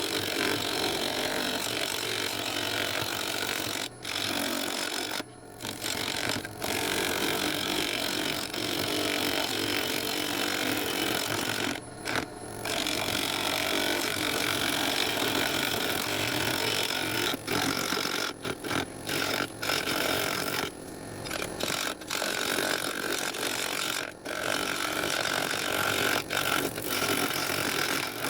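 Turning gouge cutting a spinning blank of driftwood on a wood lathe, a continuous scraping cut broken by brief pauses where the tool leaves the wood.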